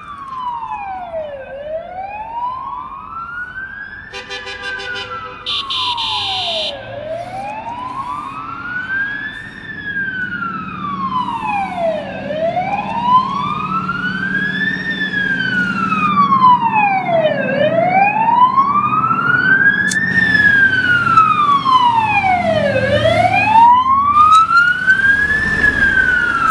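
Several emergency-vehicle sirens wailing together as a convoy of fire trucks approaches. The loudest siren rises and falls slowly, about once every five seconds, with other sirens sweeping over it, and a short buzzy signal sounds for a few seconds about four seconds in. Heavy truck diesel engines rumble underneath and grow louder near the end as the trucks pass close.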